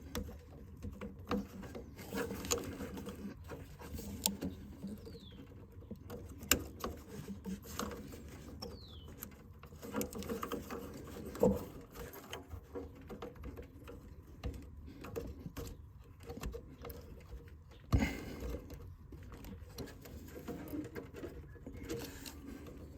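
Faint scattered clicks, taps and rubbing of fingers working a plastic wiring connector and its retaining clips in a tight engine bay, with a louder knock about 18 seconds in.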